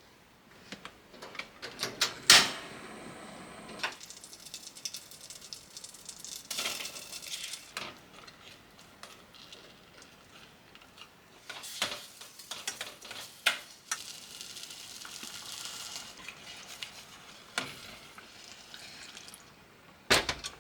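Kitchen work: utensils clinking and knocking against pots and dishes, with stretches of hissing like food sizzling in a pan. There is a sharp loud clink about two seconds in and another near the end.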